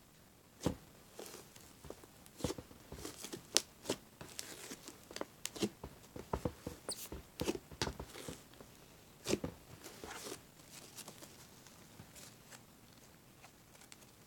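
Fluffy slime being kneaded and stretched by hand, giving irregular small pops and clicks that thin out after about ten seconds.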